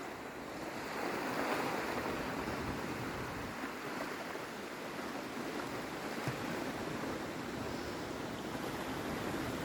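A steady rush of moving water.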